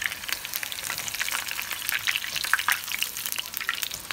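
Corn tortilla frying in hot oil in a skillet: a steady sizzle full of small, quick crackles and pops as it crisps into a tostada shell.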